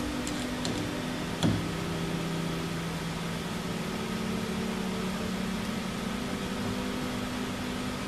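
Hand screwdriver turning a machine screw through a door lever's rose into the lockset, with a few small metallic clicks and one sharper click about a second and a half in. Under it is a steady low drone whose pitch shifts a few times.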